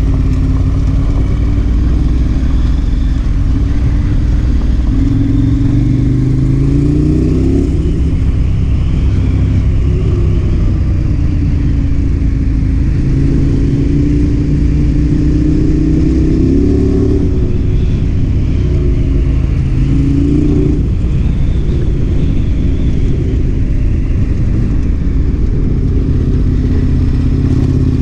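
KTM 1090 Adventure R's parallel-twin engine running under way, its pitch climbing and dropping several times as the rider accelerates and eases off.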